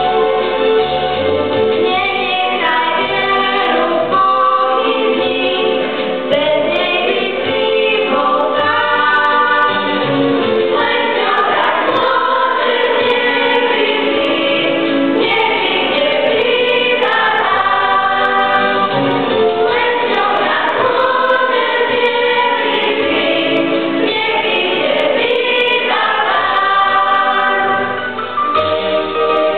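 A children's church choir with a few adult voices singing a Christian song in Slovak, over an instrumental accompaniment with a low bass line.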